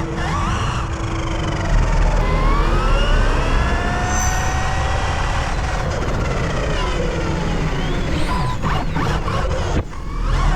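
Electric motors of high-power RC cars whining, several tones rising and falling together as the cars speed up and slow down, over a constant low rumble.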